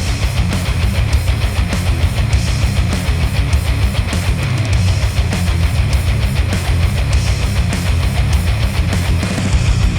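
Loud heavy rock music with electric guitar over a dense, fast beat, played back through Sennheiser headphones and picked up by microphones.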